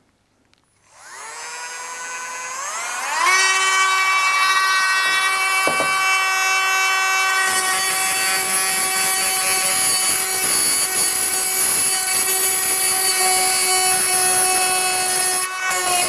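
Cordless Dremel Micro rotary tool spinning up about a second in, its whine rising in pitch, then running at a steady high speed. From about halfway a rough hiss joins the whine as the carbide bit chamfers the aluminium wrist pin boss of a forged piston to remove weight for balancing.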